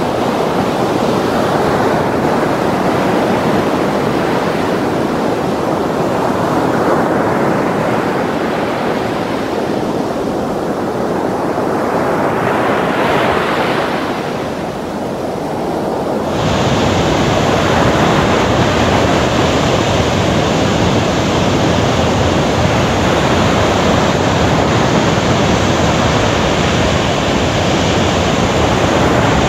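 Heavy ocean swell breaking over dark volcanic rock: a loud, continuous rush of surf that rises and falls with each wave. About halfway through it changes abruptly to a fuller, brighter rush.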